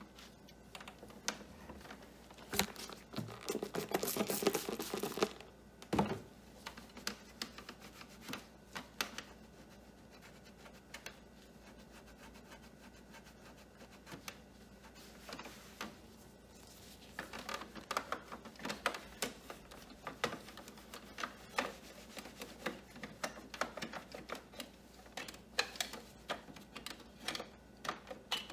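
Microfiber cloth rubbing and wiping over a printer's plastic housing and control panel, with many small clicks and taps of gloved fingers on the plastic and buttons. The rubbing is denser and louder about three to five seconds in, with a single thump just after.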